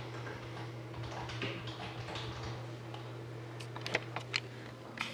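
Soft handling and rustling, then a few sharp clicks in the last second and a half, over a steady low hum.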